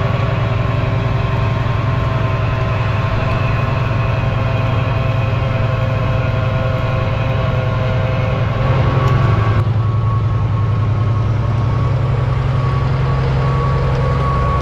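Fendt 1050 Vario tractor's six-cylinder diesel engine working steadily under load while it pulls a Kuhn rotary tiller through green rye: a steady low hum with a whine and hiss above it. About ten seconds in, the hiss drops away and the engine note steps slightly lower.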